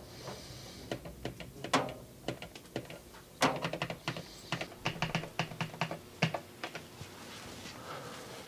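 Buttons and dial of an Orbit sprinkler timer clicking under a finger, in an irregular run of presses lasting about six seconds, as the watering station is selected.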